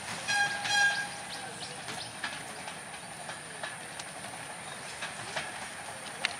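Two short horn beeps close together in the first second, the loudest sounds, followed by scattered faint clicks and knocks over a steady background hiss.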